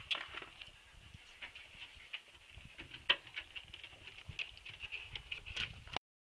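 Husky puppies scampering on concrete: a quick, irregular patter of light paw and claw clicks, with one sharper click about three seconds in. The sound stops abruptly near the end.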